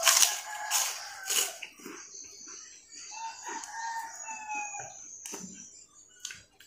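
Loud, crunchy biting and chewing of food close to the microphone in the first second and a half. A rooster then crows once, one long call lasting about two seconds, from about three seconds in.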